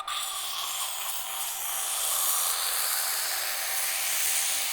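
Aerosol can of cutting oil spraying in one long, steady hiss, filling the oiler bowl of the airblast air regulator.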